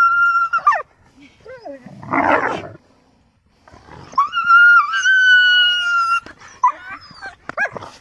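Wolf whining in long, high-pitched whines: one trails off just under a second in, another runs from about four to six seconds with a small upward step partway, and short whines follow near the end. A short rough, noisy sound comes about two seconds in.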